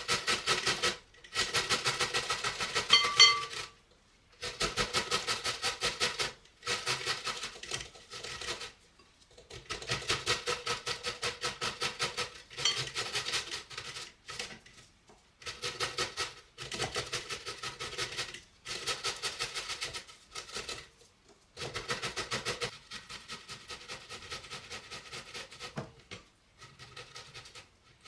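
Peeled beetroot and gherkins being cut up by hand over a big bowl: fast, even strokes, about six or seven a second, in bursts of one to three seconds with short pauses between.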